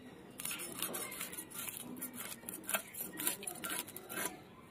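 Small parshe (gold-spot mullet) being scaled against the edge of a boti blade: a fast run of scratchy scrapes as the scales come off, starting about half a second in and stopping just before the end.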